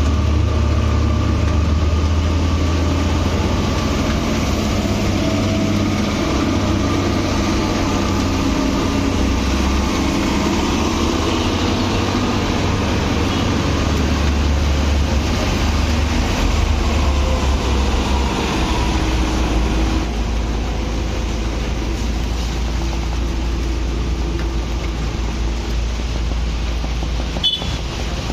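Heavy vehicle engine running with a deep, steady rumble, typical of a bus or truck labouring on the road. There is a short click near the end.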